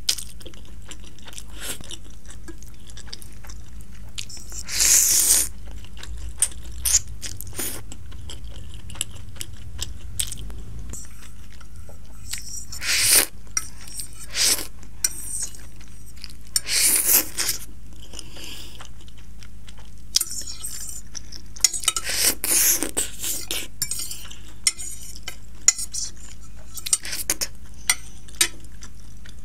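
Instant ramen noodles being slurped from a fork in several short, loud, hissing bursts, with the fork clicking and scraping on the plate between them.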